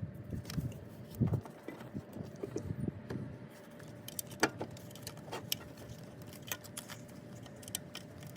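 Irregular metallic clinks, taps and a few dull knocks as the refurbished alternator and its fittings are handled and worked into place in the engine bay.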